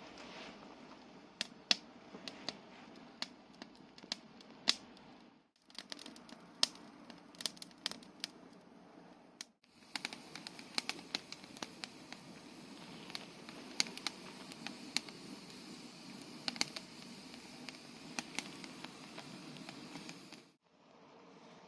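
Wood and twigs burning in a small Honma Seisakusho cooking stove, crackling with frequent sharp, irregular pops over the steady hiss of the fire.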